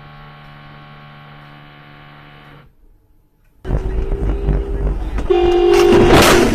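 A steady low hum, then a short break. Then loud traffic noise with a car horn sounding twice, and a loud collision crash about six seconds in as a car strikes the dashcam car.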